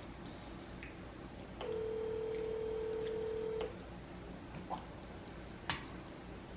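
A single steady electronic beep about two seconds long, followed by a small click and a sharp knock.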